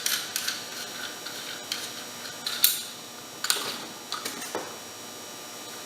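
Scattered light clicks and taps of small hardware being handled as a push button is fitted into a display plate. The loudest come about two and a half and three and a half seconds in, and they thin out after that.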